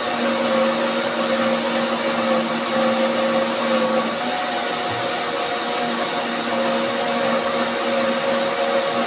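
Countertop blender motor running steadily, blending soaked beans and water that are already a smooth batter. Its pitch shifts slightly about four seconds in, and the motor cuts off right at the end, its tone dropping as it winds down.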